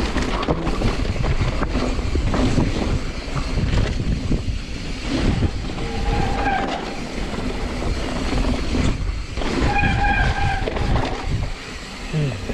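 Mountain bike riding down a wet dirt trail: wind rushing over the microphone, tyres on the ground and the bike rattling over bumps. Two short high squeals come through, about six and ten seconds in.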